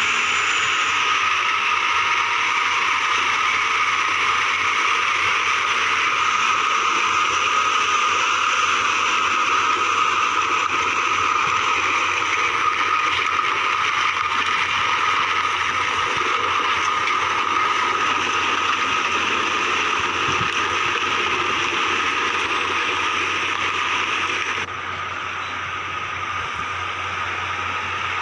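Loaded Tata multi-axle tipper truck's diesel engine running under load as it crawls through mud, a steady sound with a constant whine in it. The sound drops in level abruptly about 25 seconds in.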